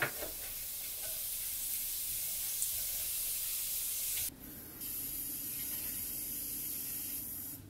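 Cumin seeds sizzling in hot oil, a steady frying hiss. It drops away briefly a little after four seconds in, then carries on.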